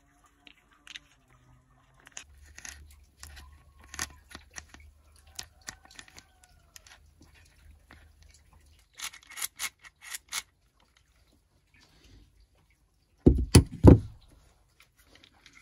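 Hands handling and fitting together the parts of an orange plastic and steel mini chainsaw attachment for a drill: scattered clicks, scrapes and light knocks of plastic and metal parts. A quick run of sharp clicks comes about nine to ten seconds in, and a cluster of heavy knocks near the end is the loudest sound.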